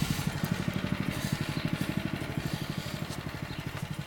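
Small go-kart engine idling with an even, rapid putter, growing a little fainter toward the end.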